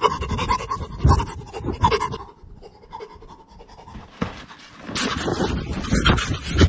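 A person panting hard close to a phone's microphone, with rustling from the phone being handled. The breathing fades for a few seconds in the middle and comes back loud near the end.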